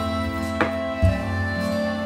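Instrumental background music with sustained notes over a bass line that shifts to a new note about a second in. A single short click sounds about half a second in.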